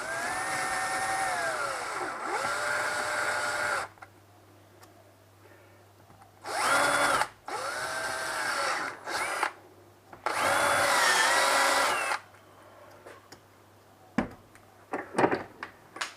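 Power drill at slow speed drilling out the bore of a plastic knob, in three short runs with pauses between, the motor's pitch rising as it spins up and dropping as it slows. A few light clicks near the end.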